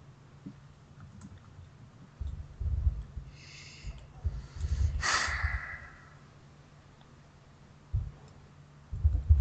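A person breathing close to a microphone: a short hiss about three and a half seconds in and a sudden sigh about five seconds in, with low muffled rumbles of breath on the mic.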